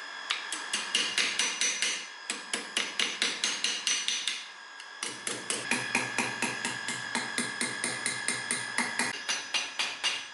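Rapid, light hammer taps, about five a second, in three runs with short pauses about two seconds in and around four and a half seconds in.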